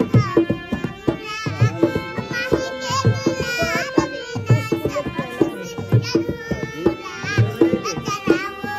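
A Bhojpuri song: a young girl's high voice sings a melismatic, wavering line over steady hand-drum beats and a held accompanying note.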